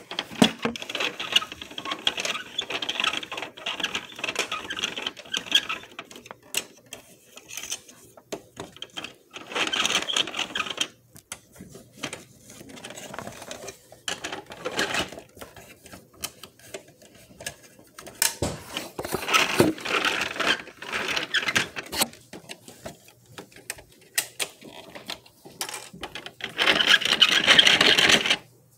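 Plastic toy garbage truck being handled, its parts clattering in bursts of a second or more with scattered clicks in between; the loudest burst comes near the end.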